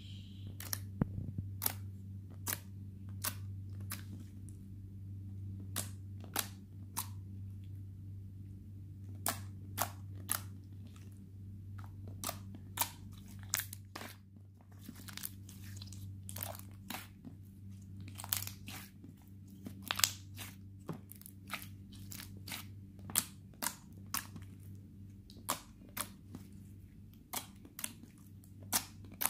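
Hands squeezing and kneading a soft glittery slime, making many short wet clicks and pops at an irregular pace, over a steady low hum.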